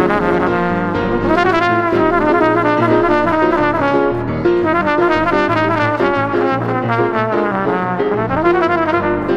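Trumpet playing a quick, melodic line of notes over C. Bechstein grand piano accompaniment.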